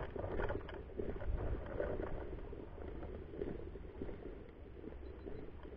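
Low rumbling handling and wind noise on a rifle-mounted camera's microphone as the rifle is carried along, with faint rustling of clothing and foliage.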